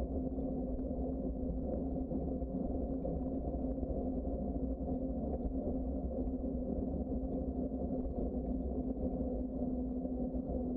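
Steady low rumble of a bicycle rolling along a paved trail, with a constant low hum running through it.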